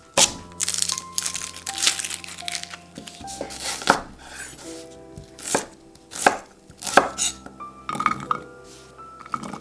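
Chef's knife slicing a shallot on a wooden cutting board: irregular sharp strikes of the blade through the shallot onto the board, with crisp cutting sounds between them.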